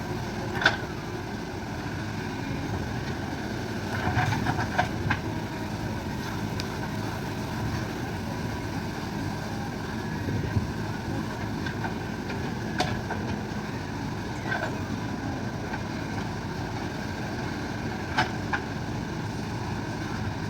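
Diesel engine of a JCB digger running steadily under work, with a few sharp clanks scattered through, one cluster of them in quick succession.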